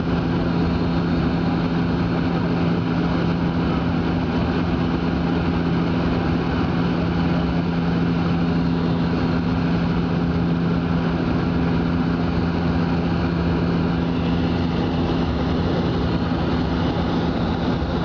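Airliner engines droning steadily, heard inside the passenger cabin: a constant low hum over even rushing noise, with no knocks or sudden changes.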